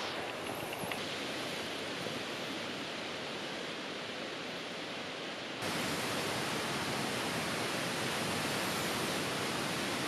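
Steady rushing noise of running water, which gets a little louder about five and a half seconds in.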